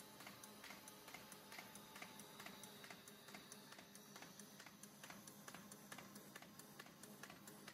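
Faint, even ticking of a single-shot paper feeder folder running, about four ticks a second over a low steady hum.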